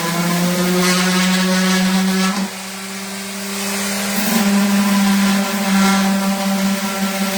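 Electric orbital sander running steadily on wood, a constant motor hum. Its level drops for a second or two around two and a half seconds in, then comes back up.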